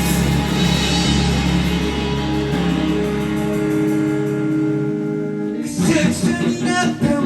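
Live rock band music: a held chord over a low bass rings on for several seconds, then the band comes back in with a singing voice near the end.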